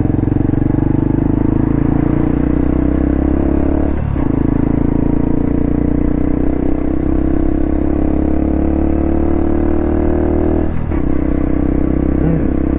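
The engine of a Honda JA45 Cross Cub 110, a single-cylinder running through a Yoshimura aftermarket exhaust and a Wirus Win power filter, under way and pulling steadily. Its note climbs gradually, with two brief breaks, one about four seconds in and one near the end. The exhaust note is a deep, pleasant one.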